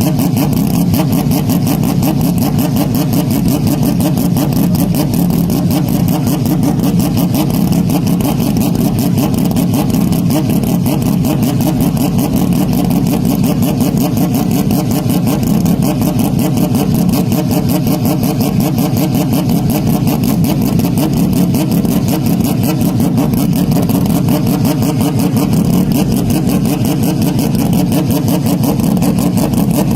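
Porsche 911 RSR flat-six racing engine running at steady high revs, bass-boosted and heavily distorted, with no change in pitch or level.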